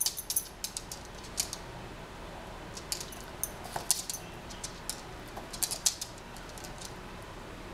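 Metal on a pet's collar jingling in short, faint clusters as the animals move about, over a low steady background hum.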